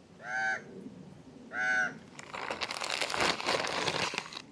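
A bird gives two short calls about a second and a half apart. Then plastic packaging crinkles and rustles as the food pouches and their clear bag are handled.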